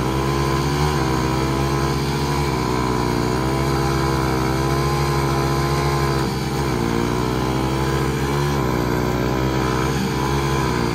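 Two Hero Splendor motorcycles' single-cylinder four-stroke engines running at high revs under heavy load as the bikes pull against each other on a rope. The engine pitch dips and recovers a few times as the load shifts.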